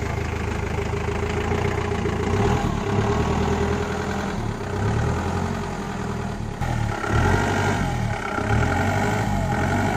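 Mahindra 4x4 jeep engines running at low revs while crawling over rough dirt, the nearer engine's note turning uneven and swelling in loudness from about halfway through as the blue jeep drives toward the microphone.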